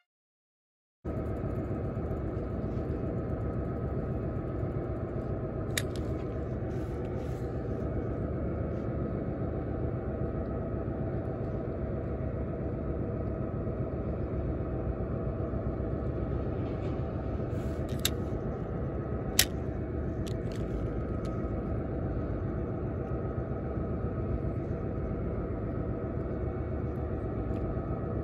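Steady low rumble of outdoor background noise with a faint steady whine above it, broken by a few sharp clicks.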